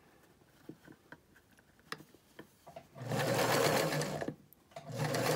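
Domestic sewing machine stitching in two short runs, starting about three seconds in and again near the end, with a brief stop between them. Before that there are only a few faint clicks.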